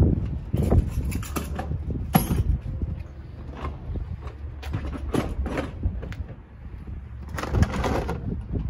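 Tools and cases being handled and packed away: an irregular run of knocks and rattles, loudest about two seconds in and again near the end, over wind rumbling on the microphone.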